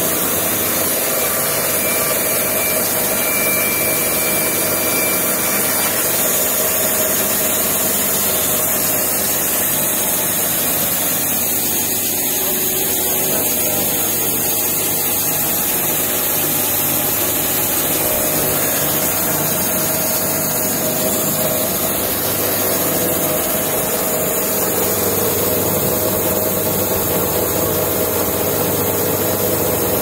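Rhino Resaw band resaw, driven by an 11 kW electric motor, running steadily while its band blade cuts a wooden cant into 38 x 38 mm timber.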